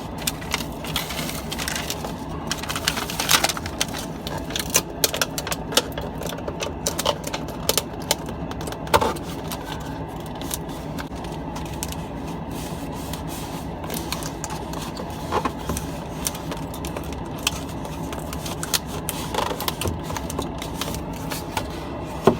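Irregular small clicks, taps and scrapes of hands handling plastic refrigerator parts and double-sided tape while refitting the air damper, over a steady low hum.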